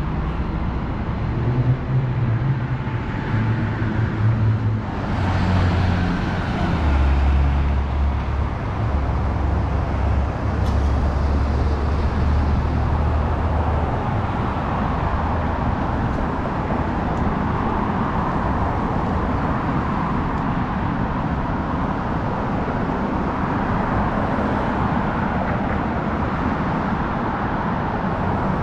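Downtown street traffic: a nearby vehicle engine runs low for the first half, with one vehicle passing about five seconds in, then a steady hum of passing cars.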